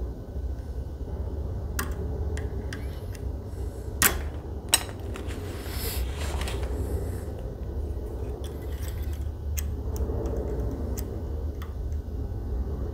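Lock pick and tension wrench working in a Medeco lock cylinder: scattered light metallic clicks and scrapes, with two sharper clicks about four seconds in, over a steady low hum.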